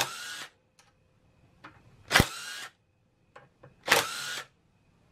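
Cordless impact gun running in three short bursts of about half a second each, roughly two seconds apart, each with a motor whine. It is driving a three-jaw puller's screw to pull a motorcycle sprocket off its shaft.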